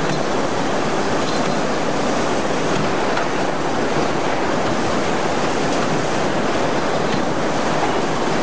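CNC wire-processing machine running automatically: a steady, even rushing noise with a few faint ticks.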